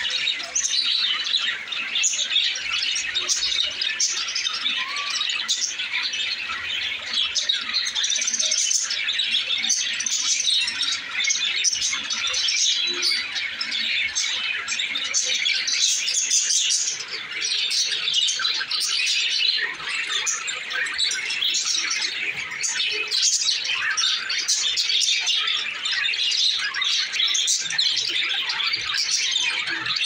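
A cageful of budgerigars chattering and chirping all at once, a dense, unbroken stream of many overlapping high chirps.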